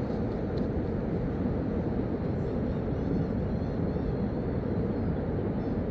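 Steady low rumbling noise, even in level throughout, with no distinct events.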